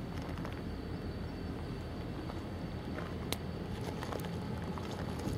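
Diesel freight locomotive running as it rolls slowly forward at the head of a train, a steady low drone with a few light clicks and one sharper click about three seconds in.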